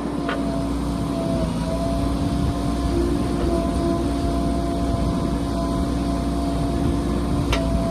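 Backhoe loader's diesel engine running steadily under load, working slightly harder after the first second, with a sharp click just after the start and another near the end.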